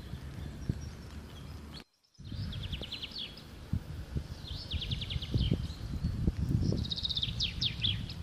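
A songbird singing three short, fast trilled phrases, a second or two apart, over a steady low rumble with scattered knocks on the microphone. The sound cuts out briefly about two seconds in.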